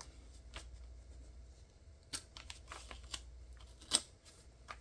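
Faint scattered ticks and rustles of washi tape and paper being handled and pressed down onto a notebook page, with a sharper click about four seconds in.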